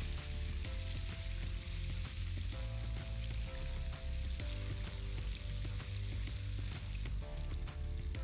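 Flour-coated squid rings deep-frying in hot oil in a pan: a steady sizzle, the sign that the oil is hot enough for a short, crisp fry.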